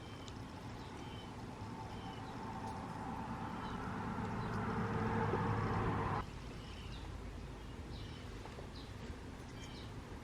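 Small birds chirping outside, short high chirps repeated throughout, with a motor's hum that grows louder for several seconds and then stops abruptly about six seconds in.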